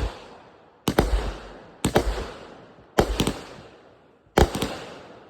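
Consumer fireworks going off in a series of loud bangs, about one a second. Each is a sharp double crack followed by a fading echo.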